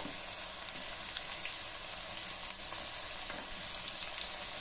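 Coated raw banana strips frying in hot oil in a small wok: a steady sizzle with scattered fine crackles.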